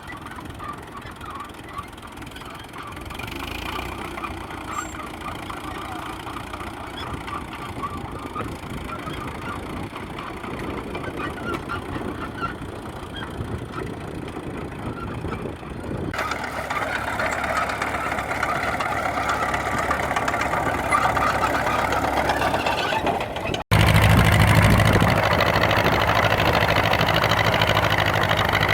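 Tractor engines running, across three edited shots. In the last shot, about 24 seconds in, the sound jumps louder and one engine running close by gives a steady low tone.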